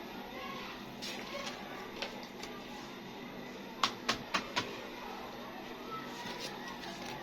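Small miniature kitchen-set pieces being handled: light taps and clicks over a steady hiss, with a quick run of four sharp clicks about four seconds in.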